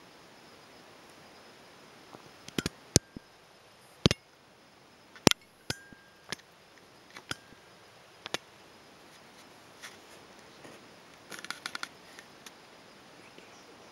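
Scattered sharp clicks and taps of hand-held gear being handled, a dozen or so spread irregularly, then a quick flurry of clicks near the end.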